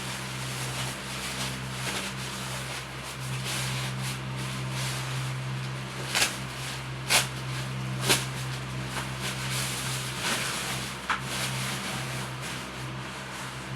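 Handling noise as a racket is unpacked: rubbing and rustling of the packaging with four sharp clicks or taps, over a steady low hum.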